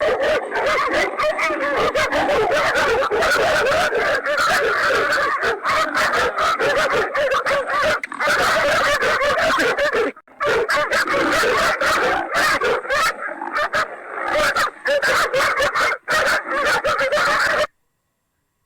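Several dogs barking and yelping at a leopard, their calls overlapping almost without a break, then cutting off suddenly near the end.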